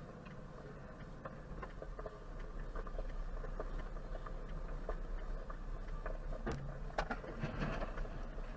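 Dashcam audio from inside a moving vehicle: steady low engine and road rumble with scattered light rattles and clicks, growing a little louder a few seconds in, and a sharper knock about seven seconds in.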